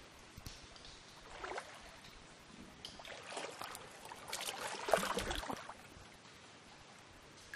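Shallow muddy stream water splashing and sloshing as a person moves and lies down in it, in irregular bursts that are loudest about five seconds in.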